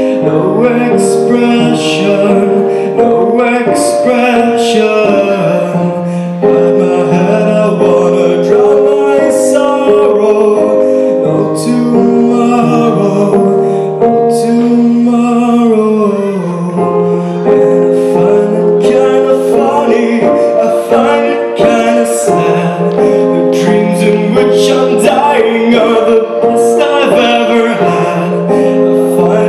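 Live music: a young solo singer's voice through a stage microphone and PA, holding long notes on a slow melody, with occasional sharp clicks over it.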